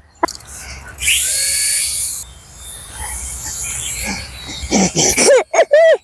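A small child's high-pitched squeals, several short cries rising and falling in pitch near the end. About a second in, a loud hiss lasts about a second.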